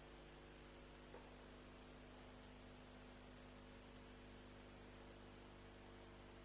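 Near silence: a steady electrical hum and hiss, with one faint click about a second in.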